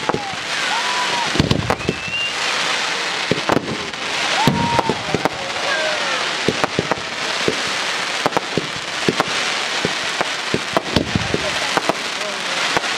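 Fireworks display: a dense, continuous crackle from crackling comets and stars, with many sharp bangs several times a second and a few deeper thumps.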